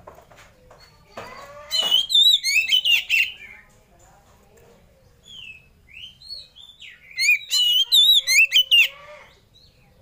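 Oriental magpie-robin (kacer) singing: two loud bursts of fast, varied whistled song, about two seconds in and again about seven seconds in, with short softer whistles between.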